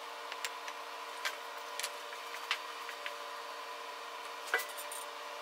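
Light clicks and taps of small metal folding-knife parts (titanium handle slabs, blade, screws) being handled and set down on the work surface, the sharpest about four and a half seconds in, over a steady shop hum.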